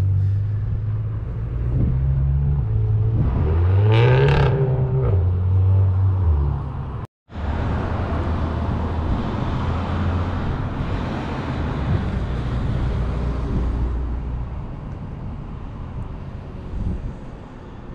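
U-Haul box van's engine running, heard from inside the cab, its pitch stepping up and down with a rise and fall about four seconds in. After a brief break about seven seconds in, a steady rush of outdoor noise with the low engine hum under it, fading toward the end.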